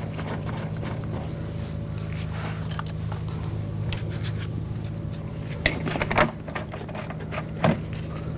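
Metal and plastic door parts being handled while screws are started by hand, giving light scattered clicks and three sharp knocks in the second half, over a steady low hum.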